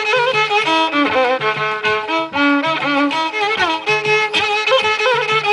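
Carnatic violin playing an instrumental interlude, a bowed melody full of sliding ornaments, over a steady pattern of ghatam (clay pot drum) strokes.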